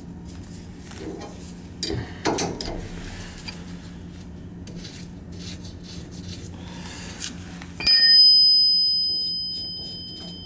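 Metal clicks and knocks from hands loosening an oil burner's cartridge oil filter housing, over a steady low hum. About eight seconds in, a single sharp metallic ring like a struck bell, the loudest sound here, fading away over about two seconds.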